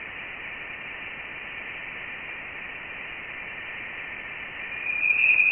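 Sonification of Voyager 1 Plasma Wave Science data recorded beyond the heliopause: a steady hiss with faint high tones. About five seconds in, a louder whistling tone swells. This is the spring 2013 electron plasma oscillation that showed the spacecraft was in denser interstellar plasma.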